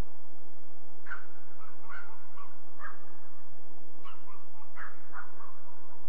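About ten short animal calls, irregularly spaced, over a steady background noise.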